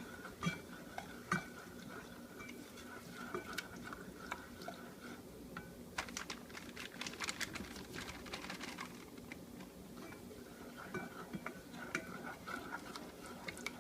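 A utensil stirring thick chocolate frosting in a saucepan, with light scrapes and clinks against the pan as powdered sugar is worked in. The clinks are busiest a few seconds past the middle, over a faint steady hum.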